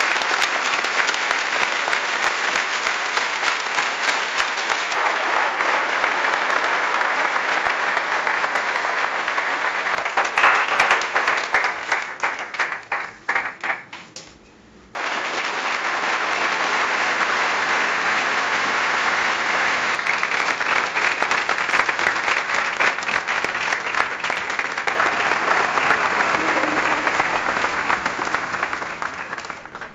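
Audience applause: a crowd clapping densely, then thinning to scattered single claps and dying away about halfway through. After a brief pause a fresh round of applause starts abruptly and carries on to the end.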